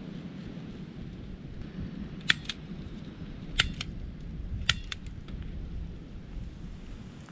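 Three sharp double clicks about a second apart, over a steady low rumble.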